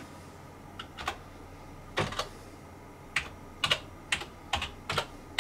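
Computer keyboard being typed: about a dozen separate keystrokes at an uneven pace, as a Wi-Fi password is entered.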